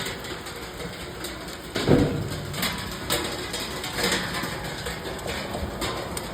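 Rain falling with wind: scattered heavy drops ticking and a steady noisy rush, with a louder thump about two seconds in.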